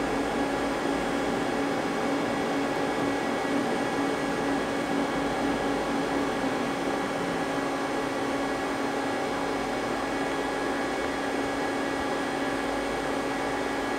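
Steady hum of a powered-up Mazak CNC lathe standing idle, a constant drone with a steady mid-pitched tone that does not change.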